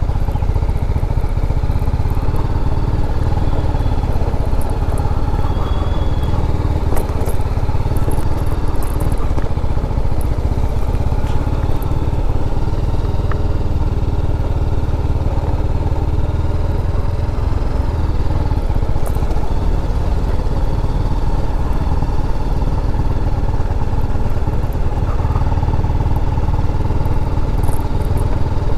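TVS Apache RR310's single-cylinder engine running at a steady pace while the motorcycle rides over a rough, stony track, a constant deep rumble.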